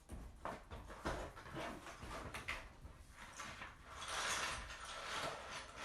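Plastic clicks and rattles from handling an opened keycap box and its contents, turning into a denser scratchy rustle of packaging from about four seconds in.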